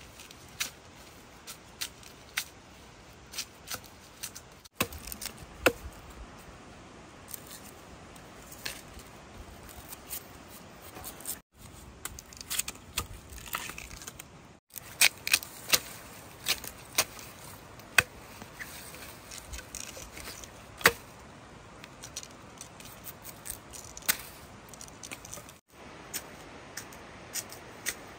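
Irregular sharp snaps and crackles of bamboo shoots and their husks being broken and handled, a few snaps much louder than the rest.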